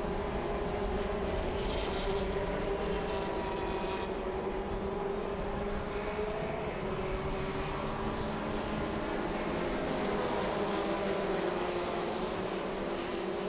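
Formula Renault single-seater race cars' engines running hard on the circuit: a steady, high-revving engine note that rises and falls slightly in pitch.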